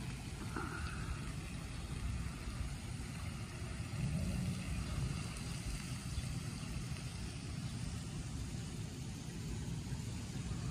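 Steady low outdoor rumble with a faint hiss above it, a little louder about four seconds in.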